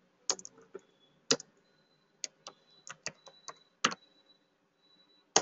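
Typing on a computer keyboard: about a dozen separate keystrokes at an uneven pace, with a louder key press near the end.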